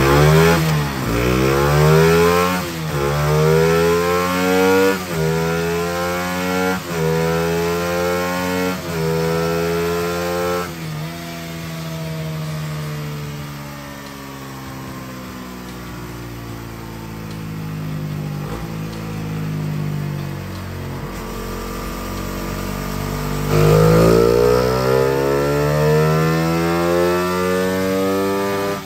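1998 Suzuki FX125's single-cylinder DOHC four-stroke engine on a chassis dyno run. It revs up through the gears, the pitch climbing and dropping back at each shift about every two seconds, then winds down for about ten seconds. It is revved hard once more near the end.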